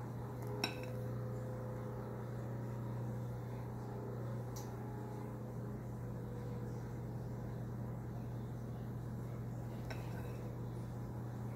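Meringue being spread over a glass baking dish with a silicone spatula: one sharp clink of kitchenware against the glass about half a second in, and a couple of fainter taps later, over a steady low hum.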